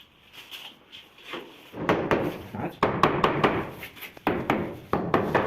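Quick repeated scraping strokes of a hand tool on a hard surface, starting about two seconds in.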